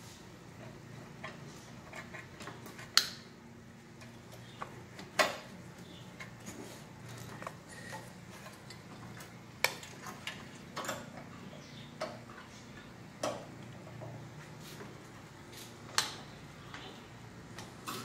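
Scattered small metal clicks and clinks with about five sharper knocks, as a Bosch distributor and its clamp bracket are worked down into the crankcase port of an air-cooled VW engine, bumping against engine metal until the distributor drive engages and it seats.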